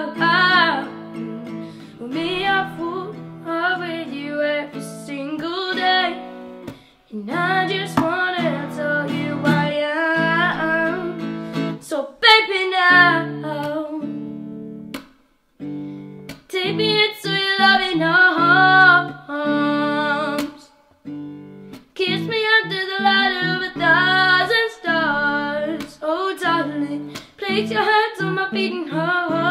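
A child singing a slow ballad while playing an acoustic guitar, the voice over steady chords, with two short breaks about halfway through.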